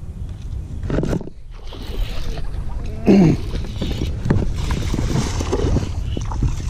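Close handling noise of a baitcasting reel and line: many small clicks and rustles from about four seconds in, over a low rumbling noise. About three seconds in comes a short grunt whose pitch falls.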